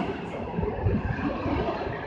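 PKP Intercity passenger coaches rolling past close by, their steel wheels rumbling on the rails with uneven knocks.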